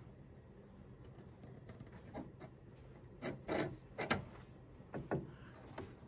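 Soft scattered clicks and scrapes of needle-nose pliers and a 20 A ceramic fuse against its metal clip holder as the fuse is pushed into place, coming in after a couple of quiet seconds.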